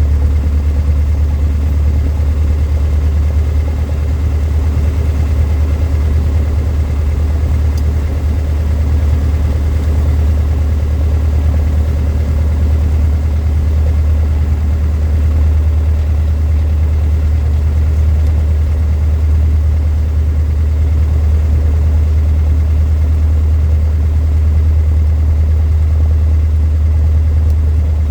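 Cessna 152's four-cylinder Lycoming O-235 engine and propeller running steadily, an even, low drone that holds the same pitch throughout.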